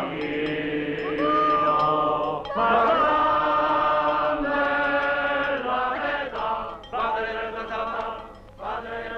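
A group of voices chanting a slow hymn-like tune together, in several phrases of long held notes with short breaks between them.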